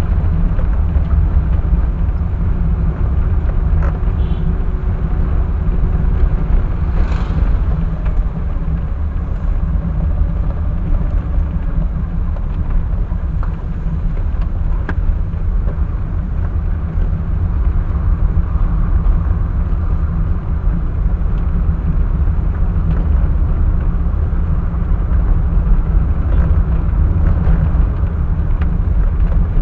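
Steady low rumble of a car's engine and road noise while driving, picked up by a dashcam's microphone.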